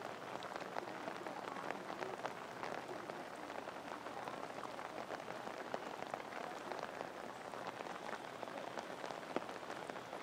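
A dense, even patter of water droplets hitting a surface, made up of many tiny ticks with no rhythm.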